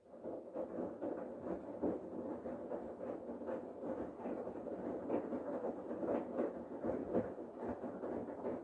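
Bosch Serie 8 front-loading washing machine's drum turning during the main wash: laundry and water sloshing and tumbling, with irregular soft thumps. It starts abruptly and stops near the end as the drum pauses between turns.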